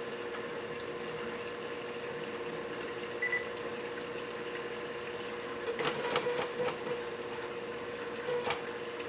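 A DIY printer-based alkalinity analyser hums steadily, and about three seconds in it gives two quick high-pitched electronic beeps, the loudest sound. Around six seconds in, and briefly again near the end, its servo mechanism whirs and clicks as it tilts the test device sideways.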